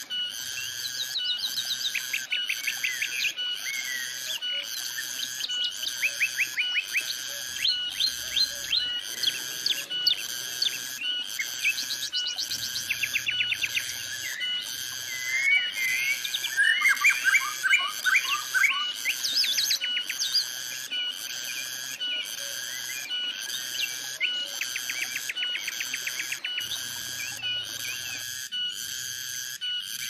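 Cicadas buzzing in a regular pulse about once a second, with birds chirping and trilling over them. The bird calls are thickest about halfway through.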